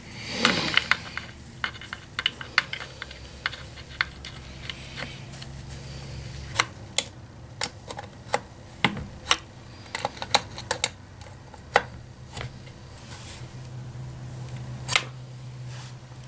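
Irregular sharp clicks and taps of small metal parts and tools being handled on a chainsaw during repair, over a low steady hum.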